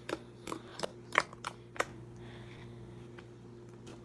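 White slime being pressed and stretched by fingers, giving a handful of short clicks and pops in the first two seconds or so, over a faint steady hum.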